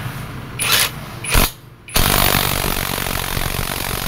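Impact wrench on the nut of a motorcycle's primary drive gear. Two short bursts come in the first second and a half, then a continuous run of about two seconds that stops suddenly.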